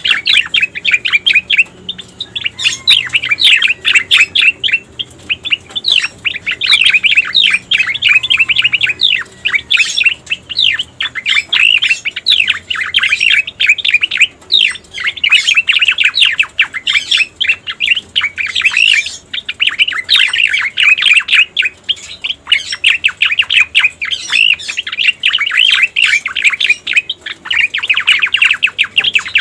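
Cica koreng (striated grassbird) singing: a dense, continuous run of rapid high chirps and trills with only brief pauses, a recorded song played as a lure.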